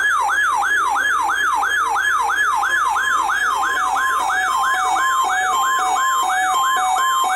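Weather alert radio receiver's alarm siren going off for a weekly test: a loud, fast repeating pitch sweep, about three a second. About three seconds in, a second alarm joins with alternating two-tone beeps.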